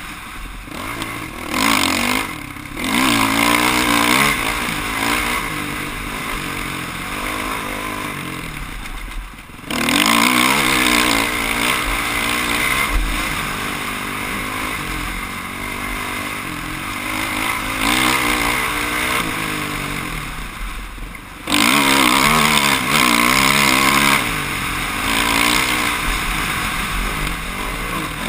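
Off-road dirt bike engine revving up and down as it is ridden through a race course. The throttle is chopped twice, about a third of the way in and about three-quarters in, and each time it surges straight back.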